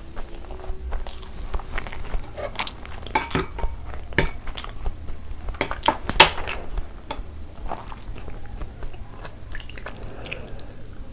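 Close-up sounds of eating by hand: wet chewing and mouth sounds, with fingers working rice on a plate making a run of small clicks and clinks, busiest a few seconds in. Near the end, curry gravy is poured from a glass bowl onto the rice.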